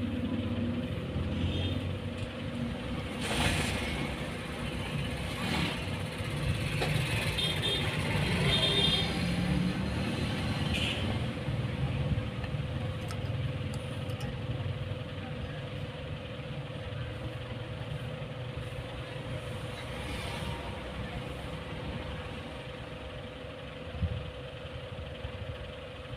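Steady low background rumble with a constant hum, broken by a few short soft knocks, one sharper knock near the end.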